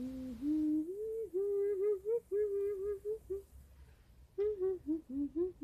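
A woman humming a tune with her mouth closed, in short melodic phrases with a pause of about a second near the middle.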